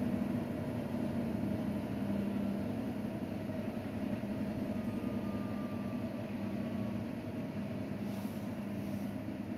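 Siemens iQ700 washing machine in its final spin, the drum turning at speed with a steady hum.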